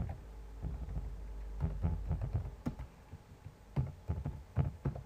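Computer keyboard being typed on in short runs of keystrokes with pauses between, entering a username and password at a console login prompt.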